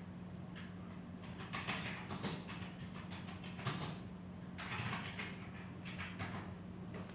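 Scattered soft clicks and brief handling noises from a laptop being operated by hand, over a steady low hum.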